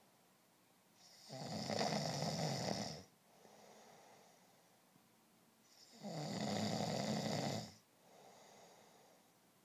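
A person snoring in deep sleep: two long snores about five seconds apart, each lasting about two seconds and followed by a much softer breath out.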